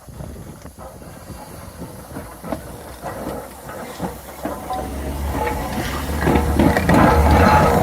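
Steam locomotive hissing steam with metallic clanks, a low rumble building and growing louder in the second half of the clip.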